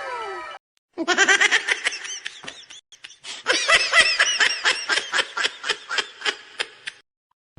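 Laughter sound effect: two bouts of rapid, rhythmic ha-ha laughter, the second longer, at about four laughs a second and fading out near the end.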